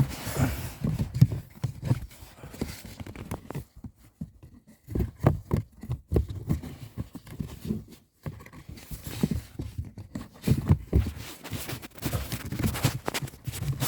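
Cabin air filter being pushed into its housing in a Honda Civic: irregular plastic knocks, scrapes and rustling as it is worked into place, with brief lulls about four and eight seconds in.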